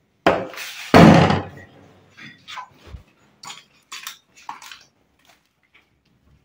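A hand banging on an old wooden panelled door, twice in quick succession with the second bang the louder, followed by lighter clicks and scuffs.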